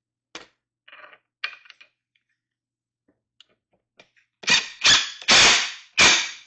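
DeWalt cordless impact driver run in four short trigger pulls, driving a bolt into a wooden stool frame, after a few light clicks of the hardware being handled.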